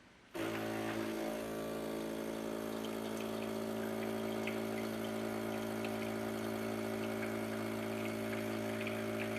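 A 20-bar espresso machine's pump kicks in about a third of a second in and runs with a steady hum while liquid pours.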